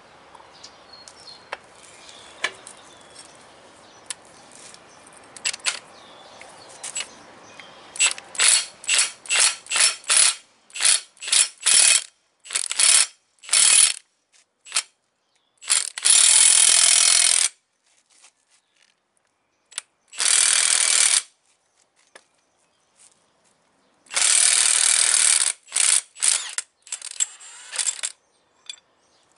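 Cordless Milwaukee M18 Fuel impact wrench hammering on a 1-11/16 inch socket to break loose the big nut on an excavator hydraulic cylinder's rod. After some light clicks of the socket being handled, it goes in a string of short trigger pulls about twice a second, then three longer runs of a second or two, and more short pulls near the end.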